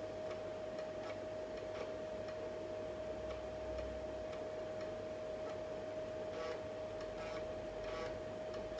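Light, irregular clicks of keys being pressed on an old 386 laptop's keyboard while stepping through the DOS setup screens, a few of them sharper near the end. Under them runs a steady high whine.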